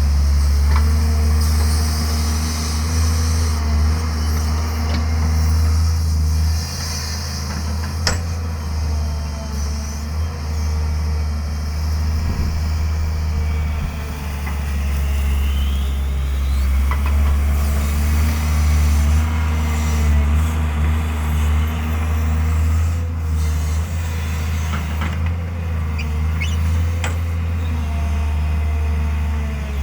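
Tata Hitachi 130 excavator's diesel engine running steadily with a deep hum and a hiss over it, broken by a few sharp clanks, one about a second in and another about eight seconds in, and a rising whine about halfway through.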